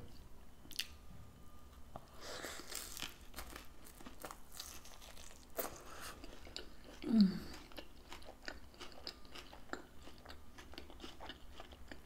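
Close-up eating sounds: a crisp-crusted taco empanada being bitten and chewed, with crunching and many small wet mouth clicks. A short hummed 'mm' from the eater about seven seconds in.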